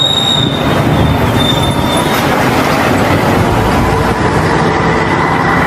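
A large vehicle running: a loud, steady rumbling noise, with a thin high whistle-like tone in the first two seconds and a fainter steady whine later. No telolet horn melody sounds.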